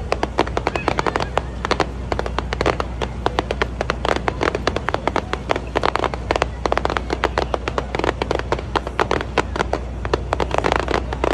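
Aerial fireworks crackling: dense runs of rapid sharp pops from crackle-effect star shells bursting overhead, coming in several bunched waves.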